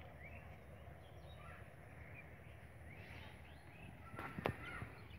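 Faint chirping of small birds, many short calls rising in pitch, over a low steady rumble, with one sharp knock about four and a half seconds in.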